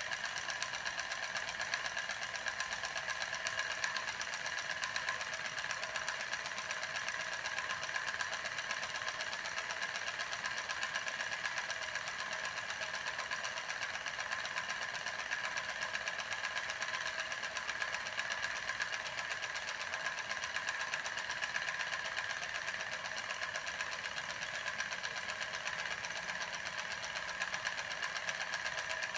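Homemade steam turbine running: a CD rotor spun by the steam jet from a candle-heated drink-can boiler through a syringe nozzle. It makes a steady, fast mechanical buzz with a high, even whine.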